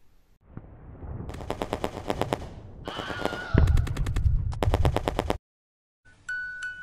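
Machine-gun fire sound effect: bursts of rapid shots, about nine a second, that cut off suddenly near the end. Just before the end a bright held chime tone begins.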